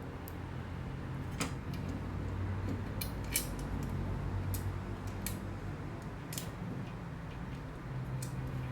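Light metal clicks and clinks, irregular and scattered, from the parts of a universal TV wall bracket being handled, over a steady low hum.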